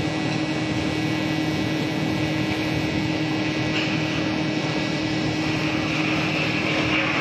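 TIG welding arc on a steel pipe root pass, running continuously: a steady hiss with an even hum underneath.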